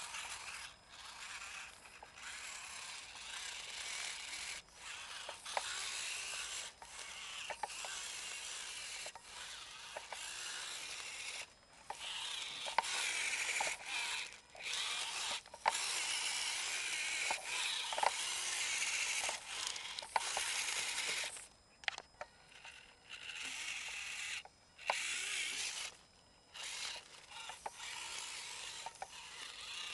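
Losi Micro Crawler's small electric motor and gearbox whirring in stop-start spurts of one to a few seconds as the crawler is driven, with scattered sharp clicks.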